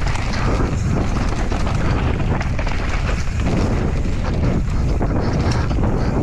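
Wind buffeting the microphone of a mountain bike descending a trail at speed, with the tyres rolling over dirt and the bike rattling over rough ground in irregular knocks.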